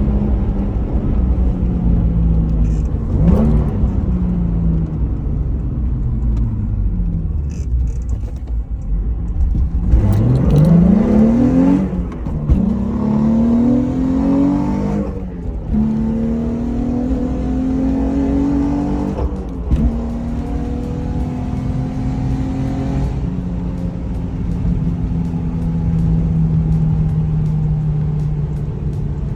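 Nissan VQ35DE V6 engine on a drive after a camshaft position sensor replacement. The revs fall early on, then climb through about three gears, dropping sharply at each shift, and then settle into steady cruising.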